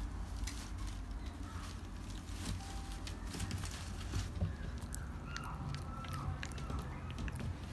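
Shiba Inu puppy's claws clicking and tapping on a wooden floor as it moves about and noses at a hand, with faint rustling over a steady low rumble.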